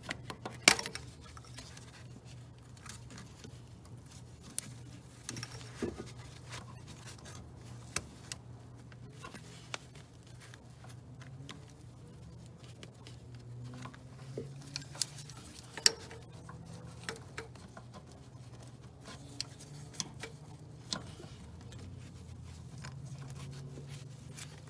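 Hand tools clicking, knocking and scraping against metal hose clamps and fittings in a cramped engine bay during work on a power steering hose clamp. The taps come at irregular intervals, with a sharp knock less than a second in and another around sixteen seconds, over a low steady hum.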